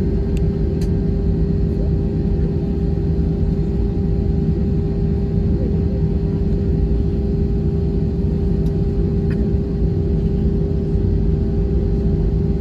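Cabin noise of an Airbus A320 heard from inside: a steady, loud engine rumble with a constant hum over it.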